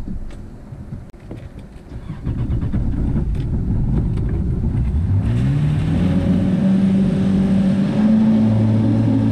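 Boat engine throttling up as the boat gets under way: about five seconds in, its note rises in pitch and settles into a steady drone, then steps up again near the end. Before that there is a low rumble with a few light knocks.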